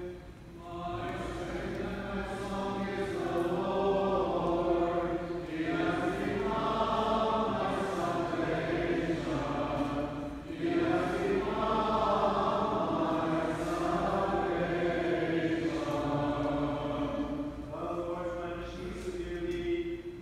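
Several voices chanting a Byzantine liturgical hymn, unaccompanied, in long sung phrases with brief breaks between them.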